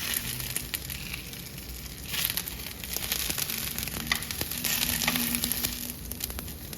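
Bok choy sizzling in hot oil in a frying pan, a steady hiss with many small crackling pops that swells louder twice.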